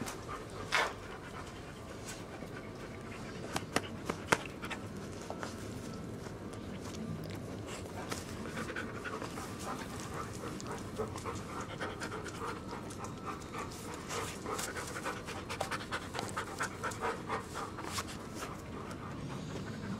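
Siberian Husky panting steadily, close up. A few sharp clicks come about a second in and three more around four seconds in.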